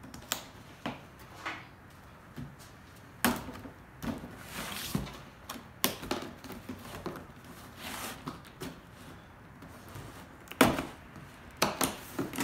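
Large cardboard box being handled and turned over on a workbench: scattered knocks and scrapes as the seal tape is cut and pulled, with a louder knock near the end as the box is tipped onto its side.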